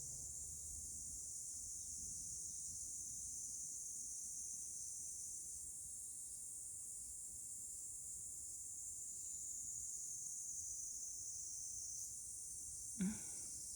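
A steady high-pitched hiss or chirring throughout. About thirteen seconds in, one short, low, pitched sound stands out as the loudest moment.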